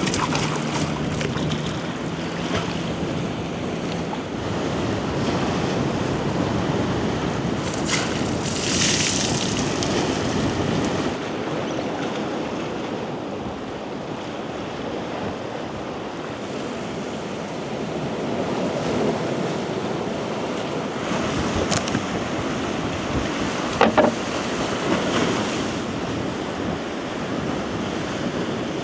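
Sea waves washing ashore with wind buffeting the microphone, broken by a few short sharp knocks, the loudest about four seconds before the end.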